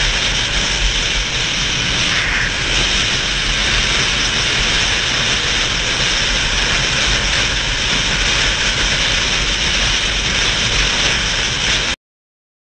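Steady rush of wind and road noise on a motorcycle-mounted camera while riding at speed, with a low rumble from the motorcycle underneath. It cuts off abruptly near the end.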